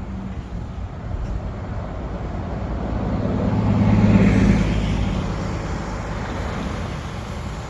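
A road vehicle passing by: a steady noise with a low hum that swells to its loudest about four seconds in, then fades away.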